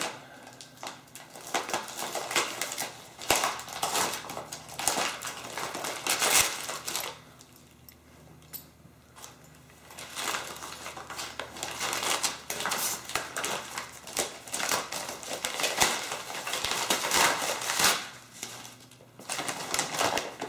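Newspaper wrapping crinkling and rustling in irregular bursts as it is pulled open and crumpled by hand, with a pause of a few seconds about a third of the way in.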